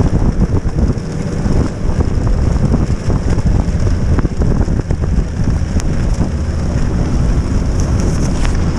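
Snowmobile engine running steadily under way, heard from on board, with wind buffeting the microphone.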